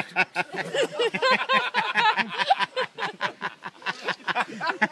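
Several people laughing and talking over each other in quick bursts of voice.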